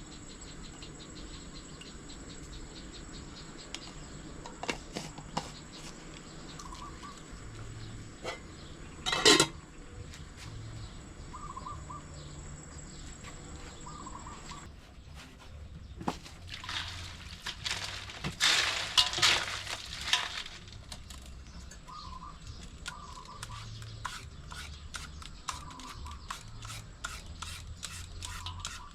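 Kitchen food-preparation handling: scattered clicks and knocks, a sharp knock about nine seconds in, and a louder noisy stretch of several seconds past the middle. A steady high insect trill runs underneath and stops about halfway through.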